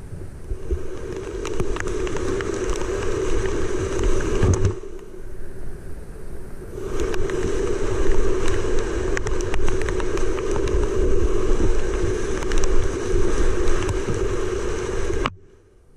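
Whitewater rapids rushing loudly around a kayak, heard close up on an action camera, with spatters of water hitting the camera housing as sharp crackles. The sound drops away abruptly near the end.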